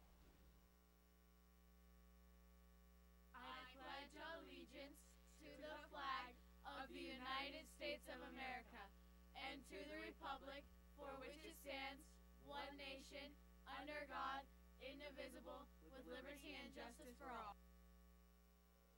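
The Pledge of Allegiance recited faintly, in phrases with short pauses, over a steady electrical mains hum.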